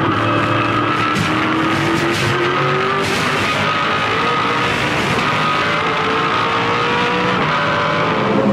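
V8 Supercar's 5.0-litre V8 engine accelerating hard under full throttle, its exhaust note rising steadily in pitch as the revs climb, with tyre and road noise underneath.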